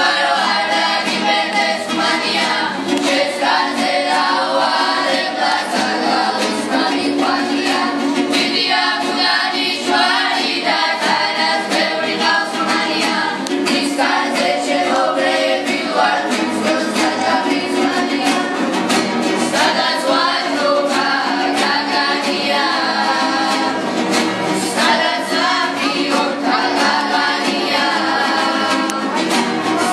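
Young voices singing together in a group while strumming acoustic guitars.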